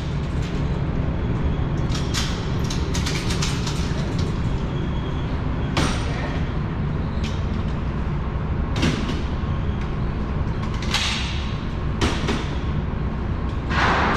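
Gunshots from other lanes of an indoor shooting range: five sharp bangs with a short echo, spread about two to three seconds apart. Under them runs a steady low rumble, and there are a few light clicks between about two and four seconds in.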